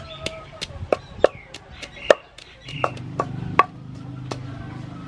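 Wooden pestle pounding chili and garlic in a mortar: sharp knocks about three a second, spacing out after about two and a half seconds. A low steady hum joins the knocks from about three seconds in.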